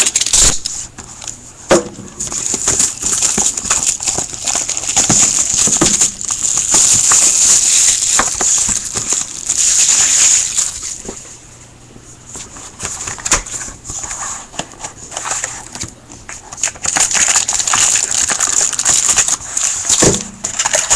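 Plastic shrink wrap crinkling and rustling as a sealed hobby box of trading cards is unwrapped and handled, with scattered light knocks from the cardboard box. The crinkling is loud and uneven and eases off for a few seconds midway.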